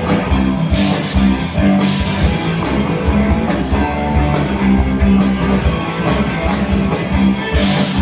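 Instrumental passage of a rock song, with guitar over a steady beat and no singing.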